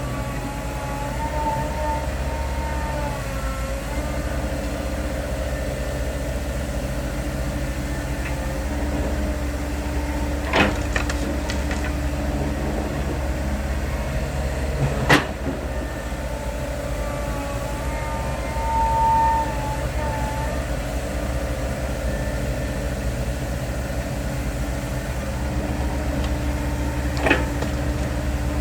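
Heavy diesel truck engines running steadily with a low rumble, broken by a few sharp knocks and clanks and a brief whine twice.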